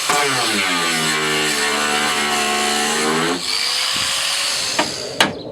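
Power tool running under load for about three seconds with a steady low pitch and a hiss, then running lighter with a high whine, followed by a few sharp clicks near the end.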